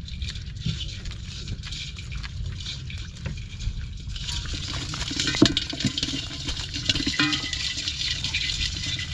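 Water trickling and dripping from a wet bamboo fish trap as it is tipped up, with a sharp knock about five seconds in, then crabs and small fish tumbling out of it into a basin.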